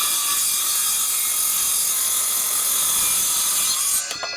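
Electric saw running at full speed, crosscutting the end of a board to square it. It is a loud, steady whine that stops cutting about four seconds in and then winds down.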